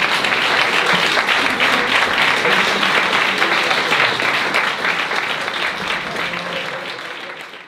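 Theatre audience applauding steadily, dying away over the last few seconds.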